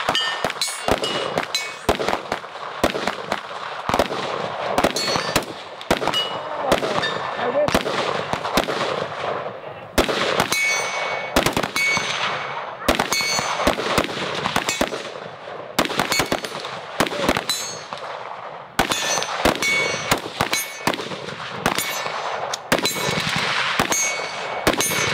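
Rifle fire from several guns on a firing line: dozens of irregular, sometimes overlapping shots, about two or three a second. Some shots are followed by the short ring of steel targets being hit.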